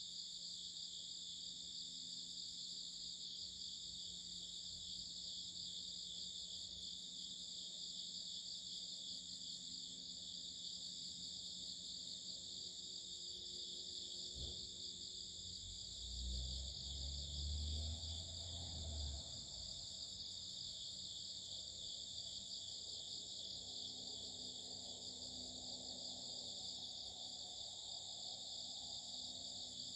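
A chorus of several insects singing together, their high-pitched trills steady and overlapping. About halfway through, a low rumble rises for a few seconds and then fades.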